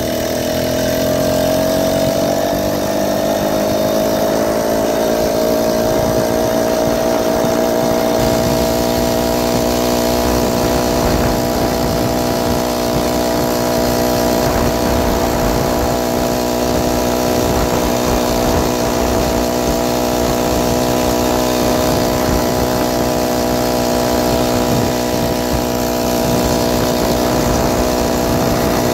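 A BikeBerry 49cc four-stroke motorized bicycle engine revving up over the first few seconds, then running at a steady pitch as the bike holds its speed.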